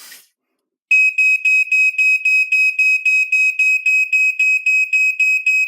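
Ei ionisation smoke alarm going off, set off by aerosol smoke-detector tester spray in its sensing chamber: a loud, high single-pitched beep repeating about four or five times a second, starting about a second in. It shows that the smoke sensor is working.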